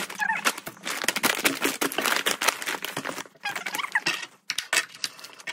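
Brown paper mailing bag crinkling and rustling as it is folded and handled, with short squeals from packing tape being pulled off the roll, mostly around four seconds in.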